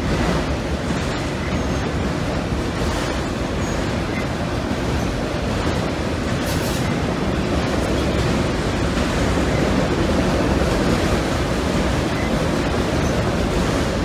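Freight train of autorack cars rolling past, with the steady noise of steel wheels on the rails.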